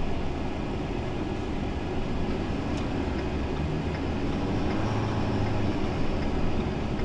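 Steady engine and road noise of a slow-moving vehicle, heard from inside its cabin.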